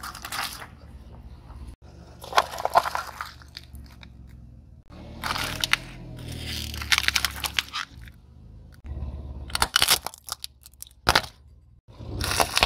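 Car tyre rolling over and crushing items one after another: tomatoes squashing, candies in plastic trays and wrapped wafer bars crunching and cracking. The sound comes in about six separate bursts of crunching with quieter gaps between them.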